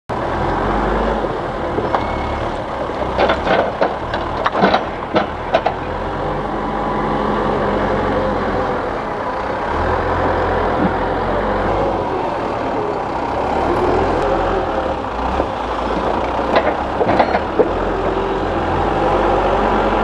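Hidromek HMK 102B backhoe loader's diesel engine running steadily as the front loader bucket tips out soil and stones. Clusters of sharp clanks and knocks from the bucket and falling rock come a few seconds in and again near the end.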